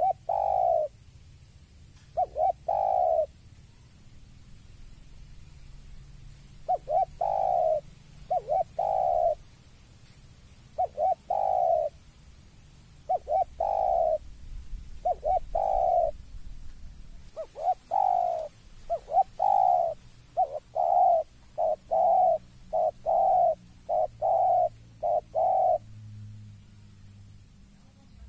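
Spotted dove cooing: loud low coo phrases of two or three notes separated by pauses, turning about two-thirds of the way through into a longer, quicker run of coos. This is the dove's calling on seeing a rival.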